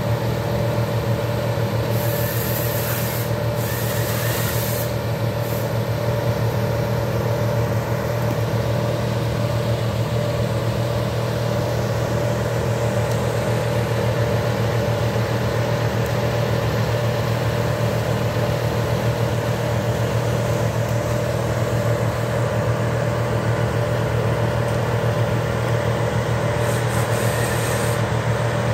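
Engine of tree-service machinery running steadily at constant speed, a low even drone, with short hisses about two and four seconds in.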